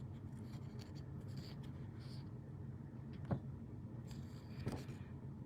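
Faint scratching and rustling of hands handling things, over a low steady hum, with one soft tap about three seconds in.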